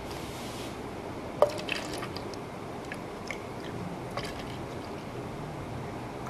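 Liquids being poured into a tall plastic cup, ending with fresh milk poured from a plastic bottle onto a red syrup layer: a soft, steady pour. A single sharp click sounds about a second and a half in, and a few lighter ticks follow.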